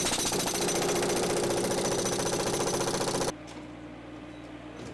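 Powered demolition hammer running with a rapid, continuous hammering, cutting off suddenly about three seconds in, after which a steadier low hum remains.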